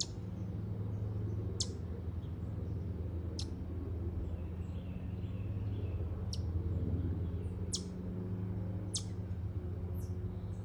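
Chipmunk calling: a series of sharp, high chips, about seven in all, each a quick downward sweep, coming one every second or so at an uneven pace. A steady low hum runs underneath.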